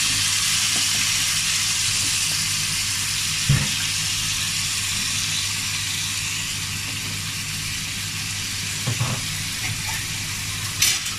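Raw chicken pieces sizzling in hot oil in a cooking pot as they are sautéed, a steady hiss, with a few short knocks of the wooden spoon as more pieces are pushed in, about three and a half seconds in, about nine seconds in and near the end.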